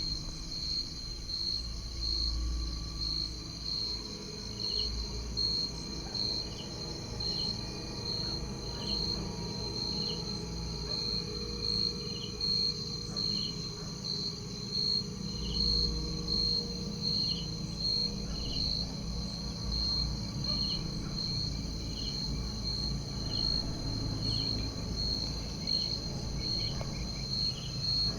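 Night insects, crickets among them, calling steadily: a high pulsing trill beating about twice a second, with a second, lower chirp repeating about once a second.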